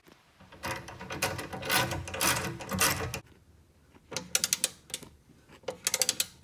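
Ratcheting wrench clicking rapidly as it turns a bolt on a seat base. There is one long run of clicks, then two shorter runs with pauses between.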